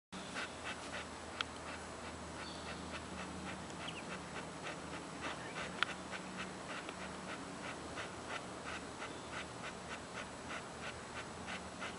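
Boxer dog panting steadily with her tongue out, a quick even rhythm of about three breaths a second. Two short sharp clicks stand out, one early and one about halfway through.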